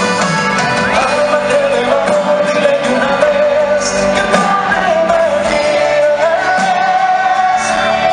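A band playing live on stage while a lead singer holds long sung notes, heard from among the concert crowd.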